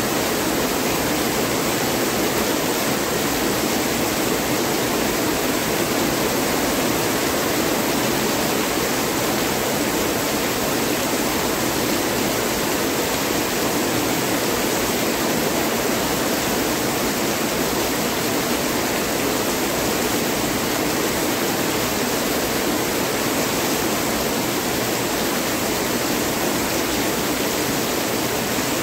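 Heavy rain pouring down steadily, a dense even hiss with no thunder or lulls.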